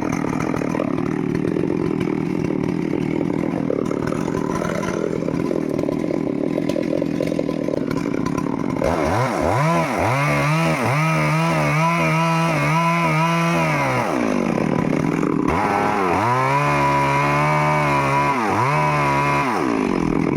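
Stihl 382 two-stroke chainsaw running at a lower, rough note for about nine seconds, then twice revving up to a high, wavering whine for several seconds before dropping back down.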